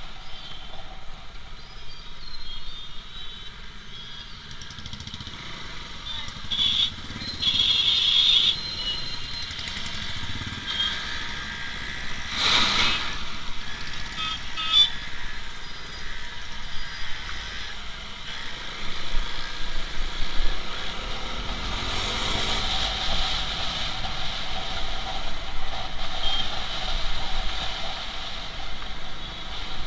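Motorcycle riding through heavy, slow city traffic: its engine and road noise run steadily under the engines of surrounding scooters, cars and autorickshaws. Short horn honks sound now and then, most clearly about seven to eight seconds in, and an engine revs up a little past twenty seconds in.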